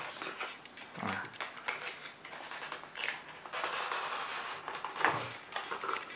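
Cardboard packaging handled by hand: a razor box turned over and set down and a second box picked up, with light clicks, rustling and a stretch of cardboard sliding and brushing about halfway through.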